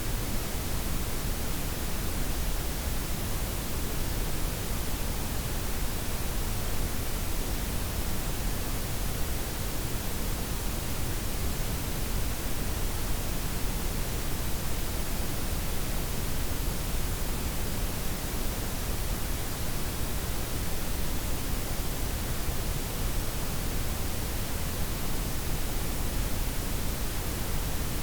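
Steady synthetic noise blend, white noise layered with pink and brown noise, with the highs softened: an even, unchanging hiss with a deep rumble underneath.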